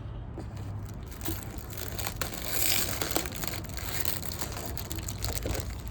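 Plastic wrapping of a trading-card rack pack crinkling and crackling as it is handled, with many small irregular crackles, busiest about halfway through.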